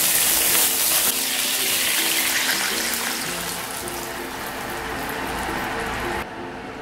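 Chicken stock being poured into a hot pan of ghee and whole spices: a loud hissing splash that fades over several seconds and cuts off suddenly near the end.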